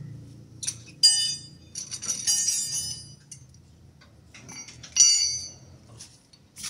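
Metal striking metal three times, about a second in, about two seconds in and again near the end, each strike ringing briefly like a bell. This is metal tools or parts being handled during rack-and-pinion work.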